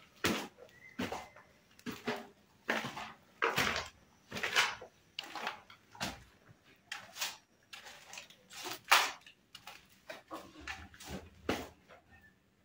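Footsteps scuffing and crunching on debris-strewn concrete stairs, short irregular steps about one or two a second.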